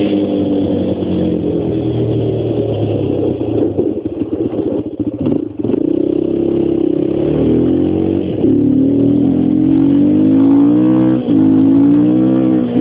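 Honda XR250's single-cylinder four-stroke engine under way: the revs fall off for the first few seconds, run low and uneven briefly, then climb again through three upshifts, each heard as a short break in the sound with the pitch dropping and rising again.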